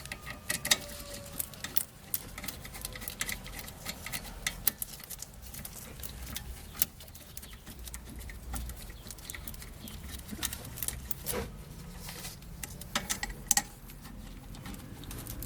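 Irregular light metallic clicks and taps as the brake caliper and hand tools are handled while the brake assembly is put back together over the new pads.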